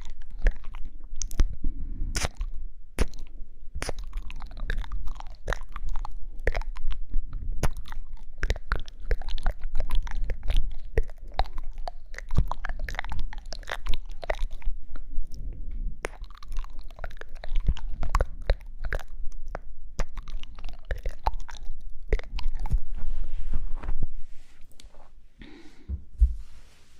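Close-miked ASMR mouth sounds: a dense stream of wet clicks and smacks, thinning out and getting quieter near the end.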